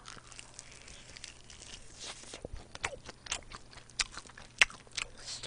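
Close-miked chewing of a fried chicken wing: soft crunches and wet mouth clicks scattered through, the loudest click about four and a half seconds in.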